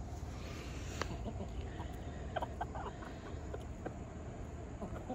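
Chickens foraging on a lawn: scattered faint pecking ticks and soft clucking over a low background rumble.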